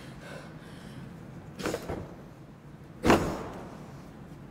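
Two sudden thumps over a low steady hum, the second, about three seconds in, the louder, each dying away over about half a second.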